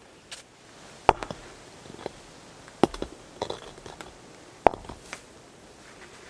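Heavy stones knocked down against one another as they are set into a fire-pit ring: three sharp knocks, almost two seconds apart, with smaller clacks and scrapes between.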